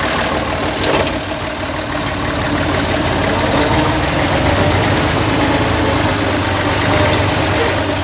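Farm tractor engine running steadily under load while pulling a tillage-and-seed-drill combination across a field, heard from the driver's seat.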